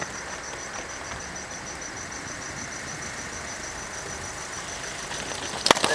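Steady outdoor noise, mostly wind on the microphone, with two sharp clicks close together near the end.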